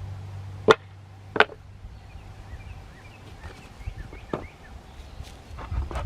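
Two sharp knocks less than a second apart, then lighter knocks and clicks from hands-on garden work, with faint bird chirps in the background.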